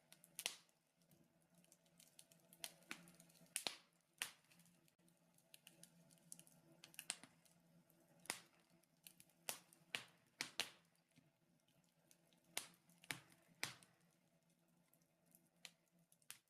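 Wood fire crackling in a fireplace: faint, irregular sharp pops and snaps.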